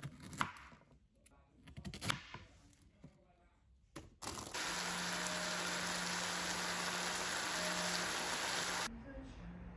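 Chef's knife cutting Brussels sprouts on a wooden chopping board: two sharp cuts about two seconds apart with loose leaves rustling. About four seconds in, a steady frying sizzle starts, sliced pork and Brussels sprouts cooking in a hot pan, and it drops away near the end.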